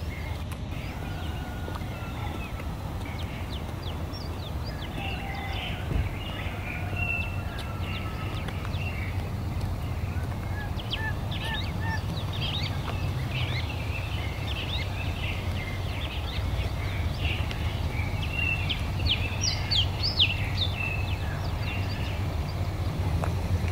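Birds chirping and calling, many short high chirps that grow thicker in the second half, over a steady low rumble.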